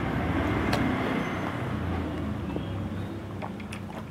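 A motor vehicle engine running, a low steady hum that gets quieter over a few seconds. A sharp click comes about a second in, and a few light clinks of spoons on plates near the end.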